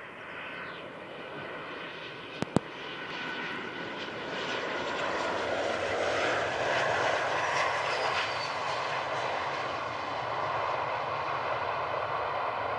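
Boeing 737-800's CFM56 jet engines running as the airliner lands and rolls out, a whining roar that grows steadily louder from a few seconds in, with a high whine that falls in pitch partway through. Two sharp clicks sound close together about two and a half seconds in.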